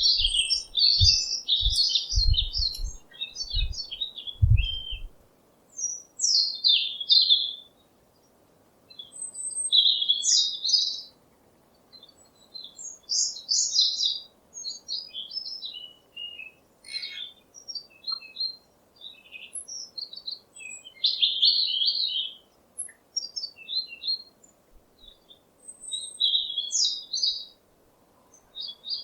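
Small songbirds chirping in short, quick phrases that come and go every second or two, with brief pauses between. A few low thumps sound in the first five seconds.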